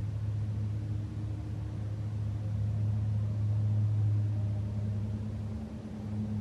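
Domestic cat purring steadily while being stroked, a low continuous rumble that dips slightly about a second in and again near the end.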